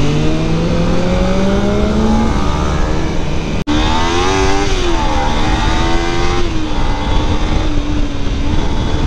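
Motorcycle engine heard from the rider's seat, its note rising steadily as it accelerates, broken by a brief dropout about three and a half seconds in, then swinging up and down before settling into a steady cruise.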